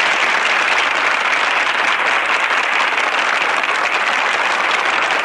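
A large audience clapping steadily in a loud, even wash of applause.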